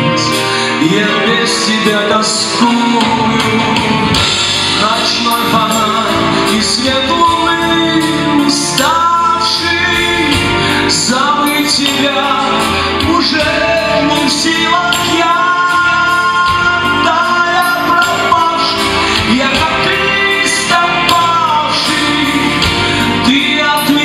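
A live pop-rock band playing a song: a singer over electric guitar, bass guitar, drums and keyboard.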